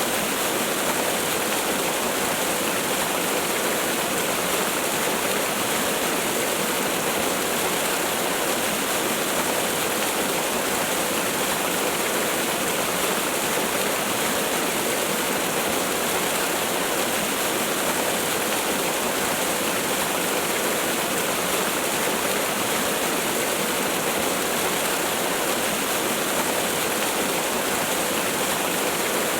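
Waterfall: falling water rushing in a steady, unbroken hiss, even throughout, with little deep rumble.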